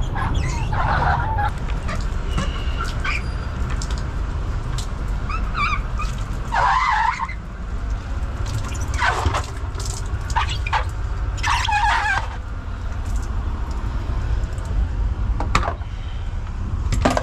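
Water-blade squeegee dragged across a wet fibreglass deckhead, squeaking in short bursts several times, over a steady low rumble.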